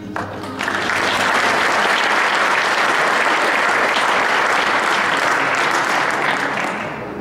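Audience applauding. The applause starts about half a second in and fades away near the end.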